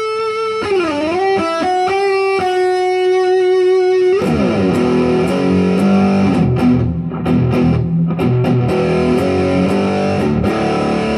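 Distorted electric guitar in drop D playing a metal riff. A single note is held for the first few seconds, dipping and sliding in pitch, then dense rhythmic riffing starts about four seconds in.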